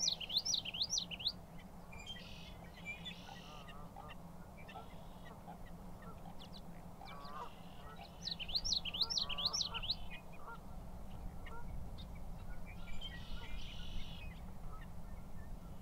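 Male common yellowthroat singing its rapid, rolling song twice, once at the start and again about eight seconds later. Other birds give short calls in the background between the songs.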